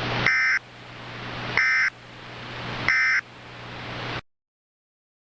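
Emergency Alert System end-of-message signal: three short bursts of digital data tones about 1.3 seconds apart, marking the close of the alert. Between the bursts a hiss grows louder, and the audio cuts off suddenly a little after four seconds.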